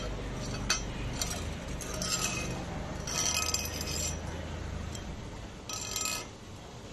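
Short bursts of high-pitched crackle and sharp metallic clinks from a fiber laser welding machine working on metal tubes, over a low steady machine hum that stops about five seconds in.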